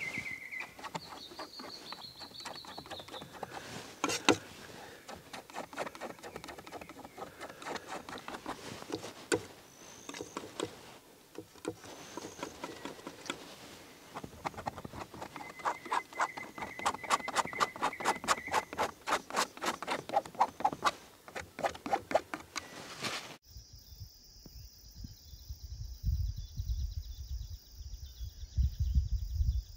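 Riverside evening ambience: rapid, rhythmic clicking with a few short bird calls. About three-quarters of the way through it cuts to a steady high hum over a low rumble.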